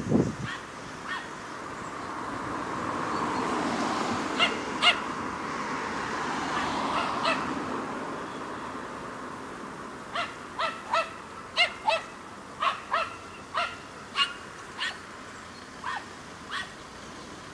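Small dog barking in high, sharp yaps: two about four seconds in, then a run of about a dozen in the second half. Under the first barks, the rush of a passing car rises and fades.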